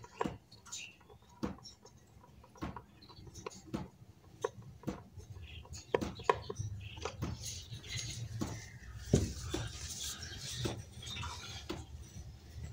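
Irregular small clicks, taps and scrapes of hands working wires into the screw terminals of a solar charge controller, connecting a DC lamp.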